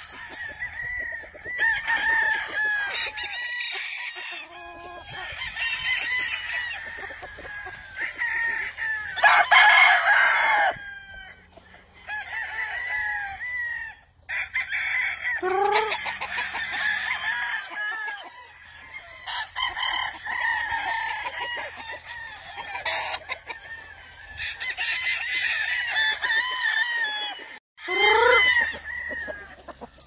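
Several gamefowl roosters crowing one after another, with clucking in between; one crow is louder and harsher about a third of the way in.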